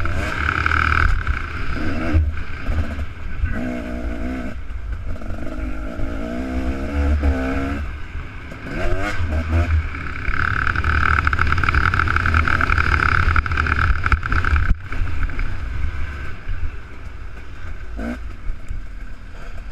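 Two-stroke dirt bike engine revving hard and easing off over and over, its pitch climbing and dropping again and again with throttle and gear changes.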